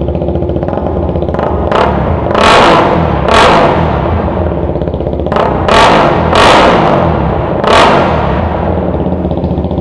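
KTM RC single-cylinder engine through an aftermarket slip-on exhaust, idling, then blipped sharply about seven times in quick succession, settling back to idle near the end.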